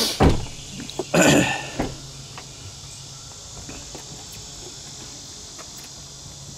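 Insects droning steadily in a high pitch, with two short loud noises about a second apart near the start.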